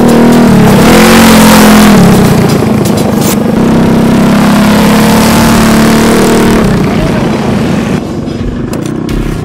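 Minibike's small single-cylinder engine running under race throttle, its pitch rising and falling in the first two seconds, then held at a steady high drone before it drops off and quietens near the end.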